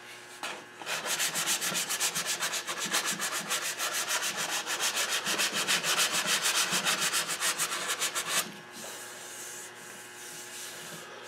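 Hand sanding with a folded sheet of sandpaper over an oak chair leg and its glued-in spline, working the patch down flush: quick, even back-and-forth strokes, several a second, that stop about eight and a half seconds in.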